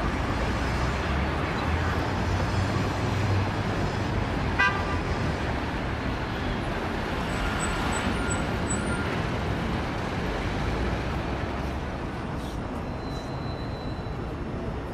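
Steady road traffic noise with a low rumble, and a short toot about four and a half seconds in.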